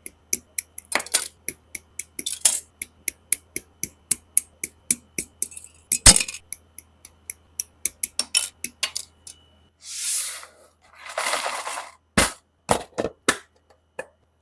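Plastic model kit parts clicking and snapping during assembly of a Master Grade Freedom Gundam 2.0, about three or four sharp clicks a second. Near the end come two short hissing rustles, then a few sharper, louder clicks.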